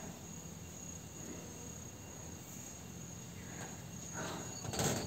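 Faint, steady, high-pitched insect trill, with a brief rustle near the end.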